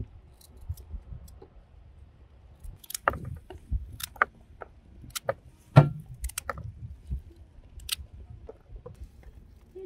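Irregular sharp clicks and knocks, sparse at first, thickening about three seconds in, with one louder knock a little before six seconds.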